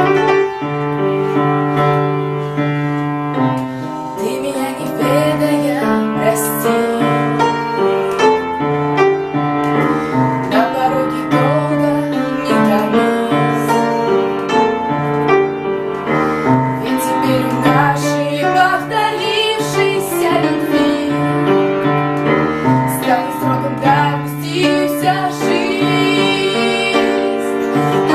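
A woman singing with vibrato over piano accompaniment.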